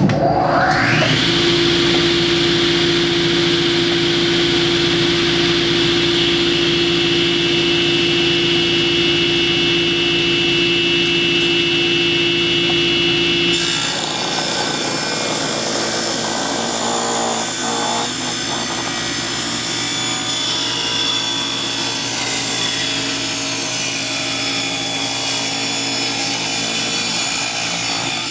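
Table saw with a 10-inch Craftsman blade starting up: the motor whines up to speed within about a second, then runs steadily. About halfway through, the sound changes abruptly as a board is fed through the spinning blade and the saw cuts wood under load.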